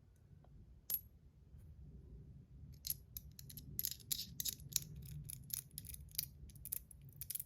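Top C metal fidget slider being clicked back and forth: one sharp click about a second in, then a fast run of sharp metallic clicks, about four or five a second, from about three seconds in.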